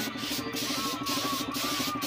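Compressed-air paint spray gun hissing as it sprays paint onto plastic motorcycle fairings, the hiss breaking off briefly about twice a second, with background music playing underneath.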